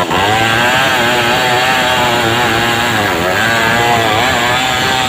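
Stihl 070 two-stroke chainsaw running at high revs while ripping a log lengthwise into boards. Its pitch wavers under load and sags briefly a few times as the cut bogs it down.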